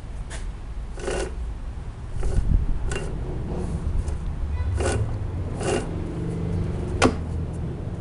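Handling noise: about six short scrapes and rubs at irregular gaps over a low rumble, the sharpest near the end.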